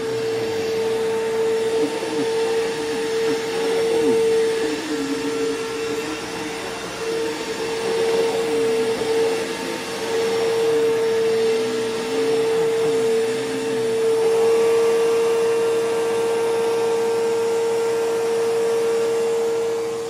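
Bissell Powerforce bagless 6579 upright vacuum cleaner running with a steady whine as it is pushed over a rug and mat. About fourteen seconds in, extra higher tones join the whine.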